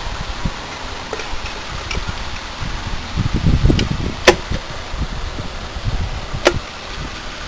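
Cast-metal halves of a Tuff Torq K66 transaxle case being handled and pressed together against a spring load inside, with low bumping and scraping and two sharp metallic clicks about two seconds apart, one near the middle and one near the end.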